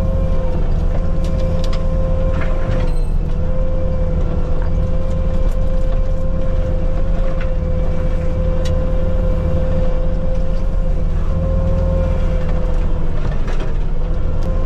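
Bobcat T750 skid steer's diesel engine running hard with the Diamond Mowers disc forestry mulcher spinning, a steady high whine over the engine rumble. The whine sags briefly a few times as the disc takes load, with scattered sharp cracks as brush is chewed up.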